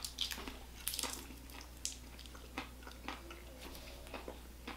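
Quiet chewing and crunching of a chocolate- and strawberry-coated whole-almond candy bar, with scattered small clicks and crackles.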